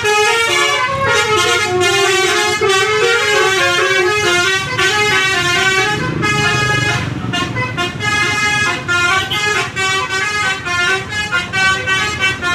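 A bus's multi-trumpet 'telolet' horn (basuri type) playing a fast tune of short notes that step up and down in pitch.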